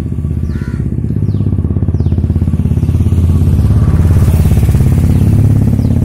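Motorcycle engine running close by, a fast, steady pulsing that grows louder about three seconds in.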